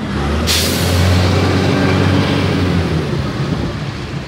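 A motor vehicle with a deep engine drone passing close by on the road, growing louder to a peak about a second in and then fading away, with a hiss that starts suddenly about half a second in.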